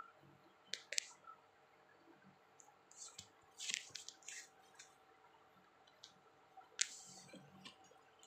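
Chilli crab being eaten by hand: scattered wet clicks and short crackles as the shell pieces are picked apart in the sauce, with squelching.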